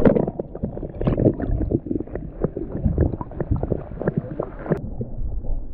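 Water splashing and sloshing close to the microphone, with many irregular knocks, as a small flathead is let go beside a kayak. About three-quarters of the way through, the higher sounds drop away suddenly and it turns muffled.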